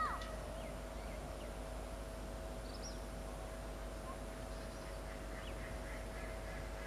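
Steady hum of an approaching Medha EMU local train, with a few short bird chirps over it; the loudest chirp is a falling call right at the start.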